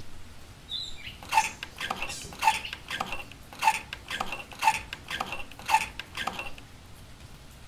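Miniature model hand pump's handle being worked up and down by hand, giving a sharp click on each stroke, about two a second, alternating louder and softer. The clicking stops about six and a half seconds in.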